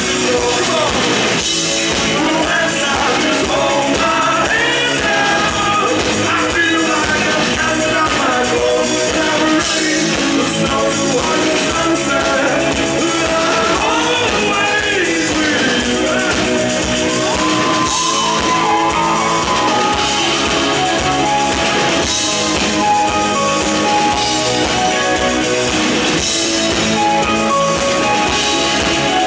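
Live rock band playing, with electric guitar, bass guitar, drum kit and keyboards under a sung lead vocal, heard from within the audience in the hall.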